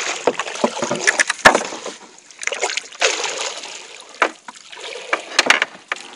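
Water splashing and sloshing against a narrow wooden boat as a long bamboo pole is worked down into the lake over the side, with several sharp knocks on the hull, the loudest about a second and a half in and a pair near the end.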